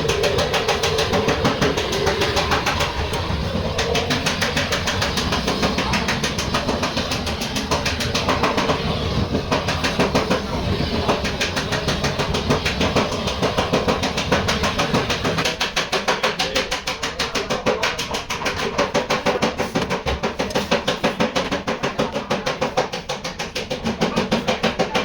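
Rapid, steady hammer blows on a car body's sheet metal, about three strikes a second.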